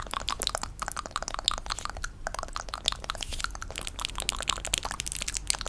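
ASMR tapping: a fast, irregular stream of crisp clicks and taps, many a second without letup.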